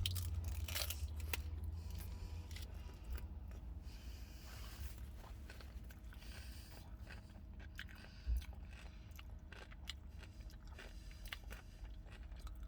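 A person chewing and biting food close to the microphone, with short crunchy clicks that are densest in the first second or two, over a low steady hum.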